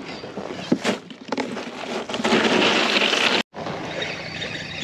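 Short knocks, then a louder hiss lasting about a second, as a speckled trout is handled aboard a fishing kayak. After an abrupt cut there is a steady wash of water and wind.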